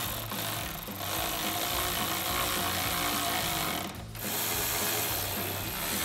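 Cordless electric ratchet running, spinning a 10 mm socket to drive the mirror's mounting nuts down onto the door studs. It stops briefly about four seconds in, then runs again.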